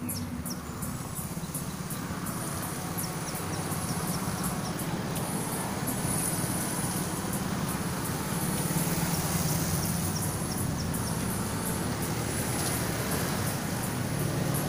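Steady low rumble of a running motor-vehicle engine that slowly grows louder, with a few short high chirps over it.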